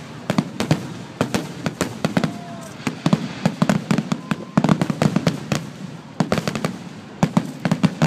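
Fireworks display: aerial shells bursting in a rapid, irregular run of sharp bangs, with the bursts thickest about four to five seconds in and again near the end.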